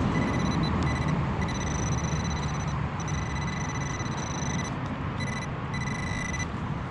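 XP Deus metal detector sounding a high, steady tone that cuts in and out several times as the coil sweeps over targets in the ground, over a steady background rumble.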